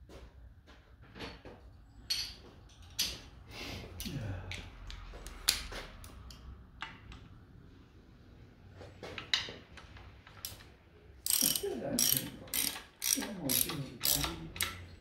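Ratchet spanner clicking in short runs among scattered knocks of tools on metal, with a louder run of rapid clicking near the end.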